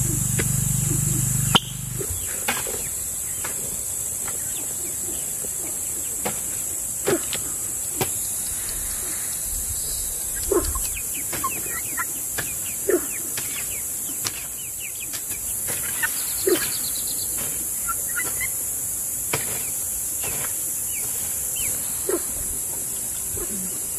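A steady, high-pitched chorus of insects, with scattered short bird chirps and occasional knocks and clicks; the loudest knock comes about a second and a half in.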